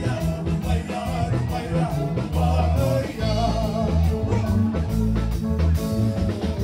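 Live band playing: a man singing into a microphone over acoustic guitar, keyboard and a drum kit, with a heavy low bass line and a steady drum beat.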